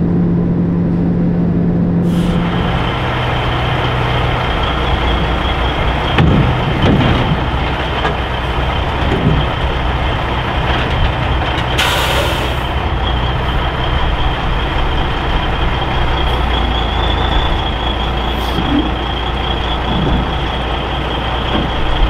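1984 Peterbilt 362 cabover's diesel engine running steadily, with a steady high whine over its low rumble. About halfway through, a short hiss of released air comes from the truck's air brakes.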